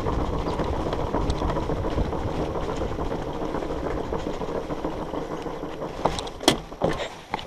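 Surly Moonlander fat bike's wide tyres rumbling over the wooden ties of a railway trestle, the rumble getting quieter as the bike slows. A few sharp knocks near the end.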